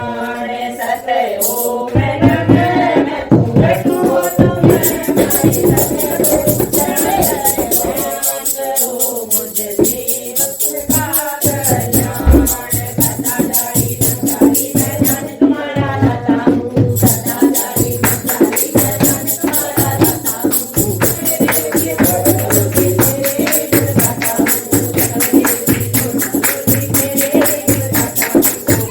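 Devotional bhajan: voices singing over a steady rhythmic percussion accompaniment.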